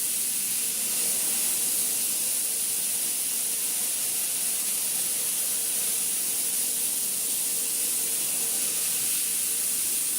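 CNC cleaning machine running, giving a steady high-pitched hiss like a spray or air jet, with a faint steady tone underneath.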